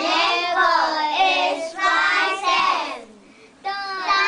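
A class of young children chanting together in unison, a rhythmic counting chant about coins, with a short break about three seconds in before they start again.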